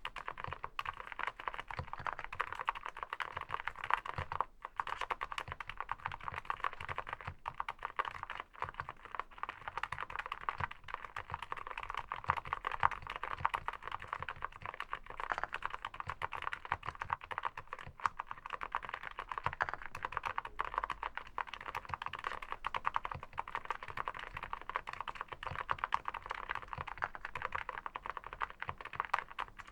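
Typing on an SPM AL87A full-aluminium 87-key mechanical keyboard: a fast, unbroken stream of keystrokes.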